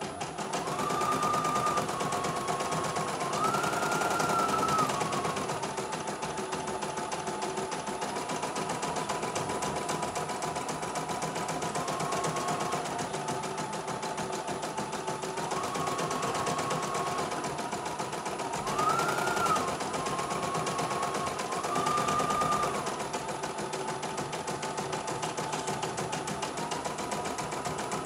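CNY E900 portable embroidery machine stitching a design: a rapid, even needle clatter over a motor whine that steps up and down in pitch every few seconds as the machine changes speed.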